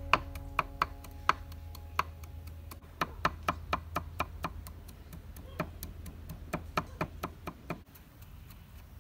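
Cleaver chopping on a thick round wooden chopping board: sharp, irregular knocks about three a second, with a short pause about halfway and stopping about a second before the end.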